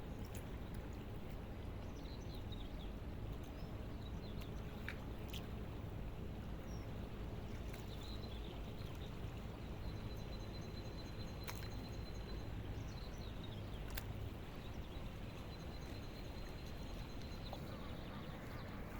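Steady low outdoor rumble with a few faint clicks and brief high chirps.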